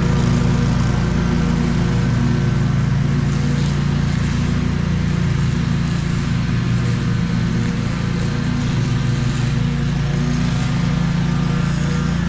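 Scag 36-inch stand-on mower, fitted with a mulching kit, running steadily while it cuts grass.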